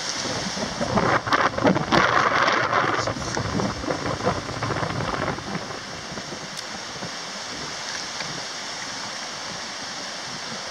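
Strong wind buffeting the microphone of a camera on a moving bicycle: a gusty rush, loudest and roughest from about a second in for a few seconds, then settling to a steadier hiss.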